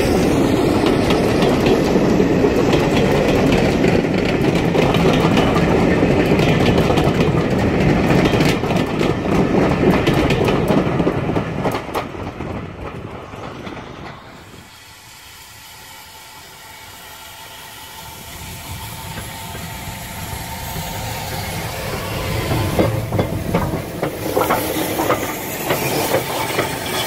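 Steam-hauled passenger train's coaches rolling past close by, wheels clattering over the rail joints, then fading as the train draws away into the distance. Near the end a Bulleid Battle of Britain class steam locomotive passes close, with steam hiss.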